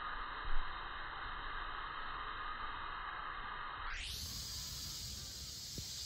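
Steady hiss of background noise, with one short knock about half a second in.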